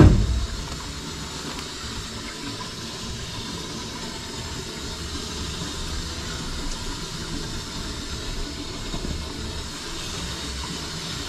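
A steady rushing, hissing noise, with a sharp low knock right at the start.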